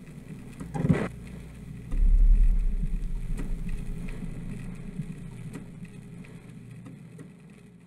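Logo animation sound effect: a short whoosh about a second in, then a deep low rumble that comes in a second later and slowly fades away.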